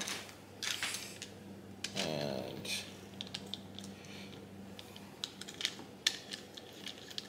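Light, scattered clicks and clinks of brass garden-hose quick-connect fittings being handled and worked apart by hand.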